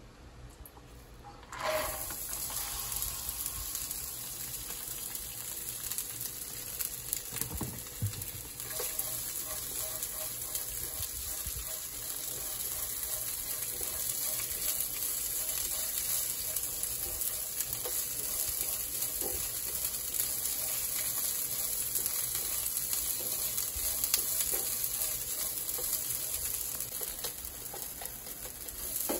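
Bean sprouts sizzling in a hot nonstick frying pan: a steady hiss that starts suddenly about a second and a half in as they go into the pan, with a few light scrapes of a spatula stirring them.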